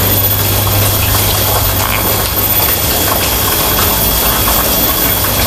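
A machine running steadily and loudly: a low, even hum under a constant hiss.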